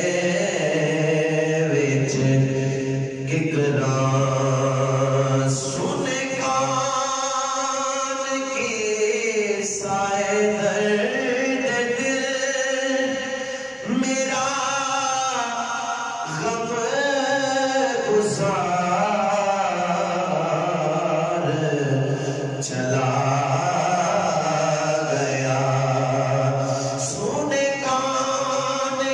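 A man singing an Urdu lament poem solo and unaccompanied into a microphone, in long, ornamented held notes with vibrato.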